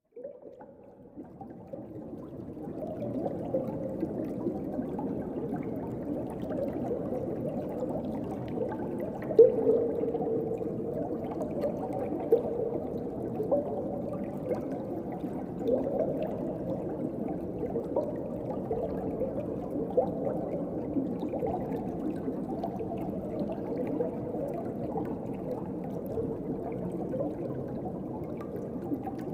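Underwater ocean ambience: a dull, steady water rush dotted with small bubbling and gurgling pops. It fades in over the first few seconds, and one louder pop comes about a third of the way in.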